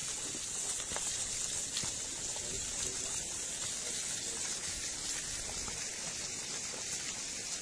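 Steady hissing rattle of gravel and small stones pouring down a scree slope in a rockslide, with a few faint clicks of single stones striking.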